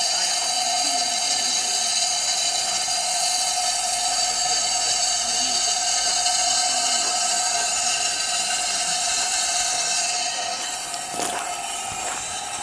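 Steam hissing steadily from the standing Puffing Billy narrow-gauge steam locomotive 7A, with a steady whistling note running through the hiss. The hiss eases slightly near the end, where a couple of sharp knocks are heard.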